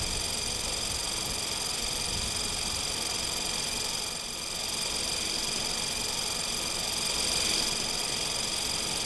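A small motor running with a steady mechanical whirr and an even hiss.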